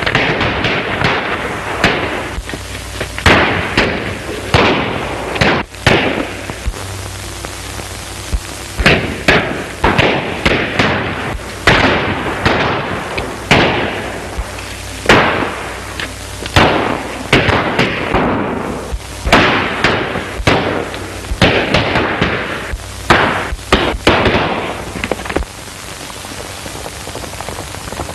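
Gunfire in a shootout: many sharp shots at irregular intervals, roughly one a second, each with an echoing tail.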